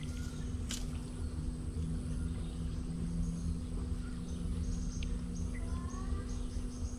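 Rural outdoor ambience: a few faint bird chirps and light ticking over a steady low hum and rumble.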